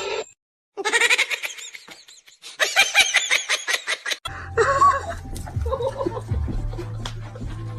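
A person laughing in two quick, high-pitched bouts, then a cut to a low steady hum with faint scattered sounds from a little past the middle.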